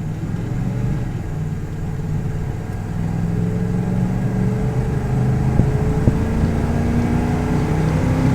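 A 1982 Chevy C10's carbureted small-block V8 accelerating hard in a timed 0-60 run, its engine note climbing steadily and getting louder.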